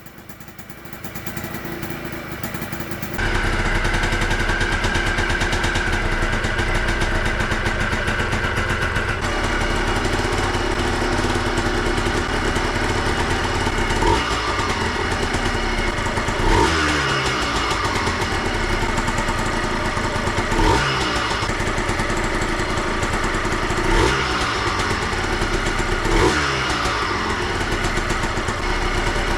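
Yamaha Blaster's single-cylinder two-stroke engine starting about three seconds in and then running steadily. The throttle is blipped briefly five times, each rev falling back to idle. This is the first start after a full rebuild, and it runs tight and idles right away.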